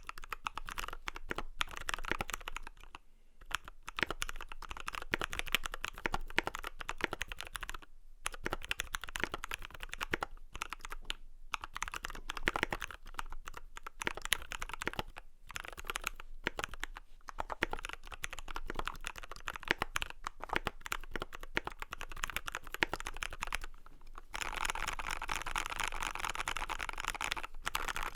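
Typing on a custom 60% mechanical keyboard with lubed C³ Equalz Dragon Fruit switches, a brass plate and PBT cherry-profile keycaps: a fast, steady stream of key clicks broken by a few brief pauses, growing denser for the last few seconds.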